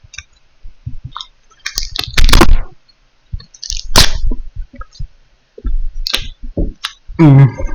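Close-up mouth sounds of a person biting and chewing popcorn-bag paper: irregular crackles and squelchy crunches, the loudest about two seconds in.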